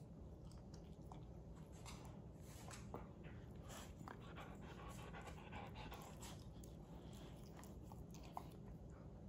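A Siberian husky and a yellow Labrador puppy licking each other's muzzles: faint, irregular wet licking and smacking sounds, with a dog panting, over a low steady hum.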